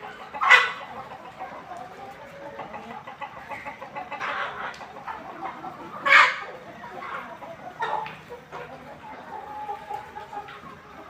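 A flock of egg-laying hens clucking continuously, with a few louder calls standing out, the loudest about half a second in and about six seconds in.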